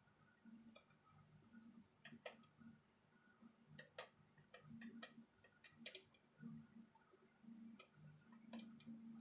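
Faint, irregular small clicks and taps over a low steady hum, typical of handling a satellite receiver and tools on a workbench during a repair.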